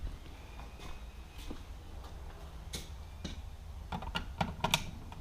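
Scattered small clicks and taps, with a quick run of them about four seconds in, over a low steady hum.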